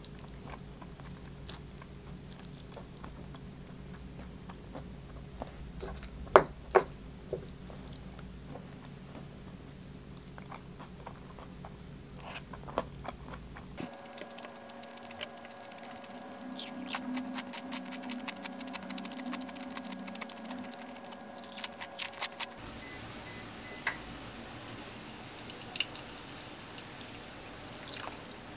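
Eating sounds: wooden chopsticks clicking against plates and bowls, with chewing and crunching of food. Two sharp clicks stand out about six seconds in, and a run of lighter clicks comes later.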